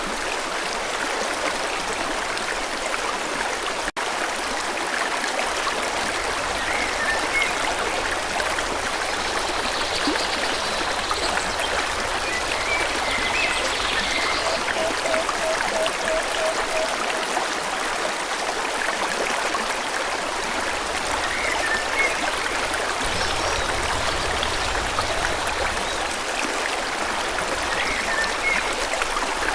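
A forest stream rushing steadily, with scattered short bird chirps over it and a brief run of rapid low notes midway. The sound cuts out for an instant about four seconds in.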